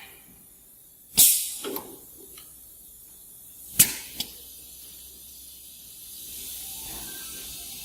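Pneumatic system of a Fenstek 08S double-head aluminium cutting saw, air cylinders and solenoid valves, letting out short hisses of compressed air, with a loud one about a second in and a sharper one with a click at about four seconds, as the machine is worked for a test cut.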